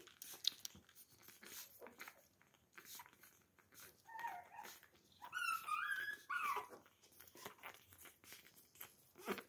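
Puppies suckling at their mother's teats with soft, wet smacking clicks. A puppy gives a short high whimper about four seconds in, then a longer, wavering whine.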